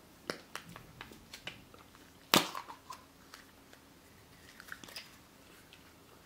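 Plastic Kinder Surprise capsule being handled and opened: scattered small clicks and rustles, with one sharp, louder snap a little over two seconds in.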